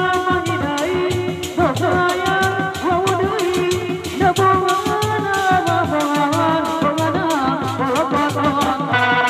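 Sundanese dog-dog drum ensemble playing a fast, steady beat, the drums struck by hand and with sticks, under a melody line that slides and bends in pitch.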